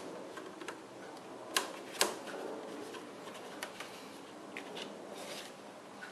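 Scattered small clicks and taps of pliers and hose fittings as the radiator overflow hose is connected, with two sharper clicks about a second and a half and two seconds in.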